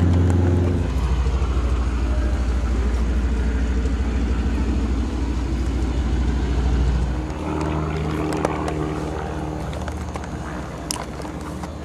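Piston engine of a propeller aircraft, a North American T-6 Texan, running at low power with a steady low drone. About seven seconds in, the drone shifts to a higher pitch.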